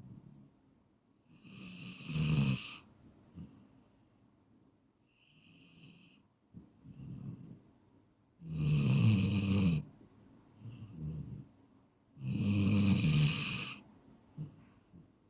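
A sleeping person snoring, with three loud snores about two, nine and thirteen seconds in and softer breaths between them.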